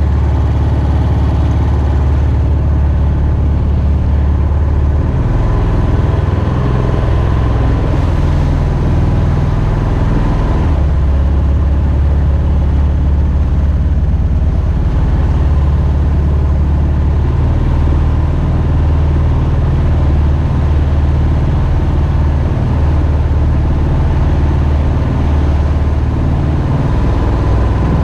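Mokai jet boat's Subaru EX21 single-cylinder engine running steadily through its water-cooled muffler. Its low note shifts about five seconds in and again about ten seconds in.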